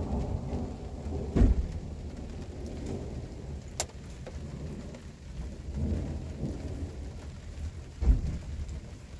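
Steady rain falling during a thunderstorm, with thunder rumbling low and two short, heavy low thumps, one about a second and a half in and one near the end.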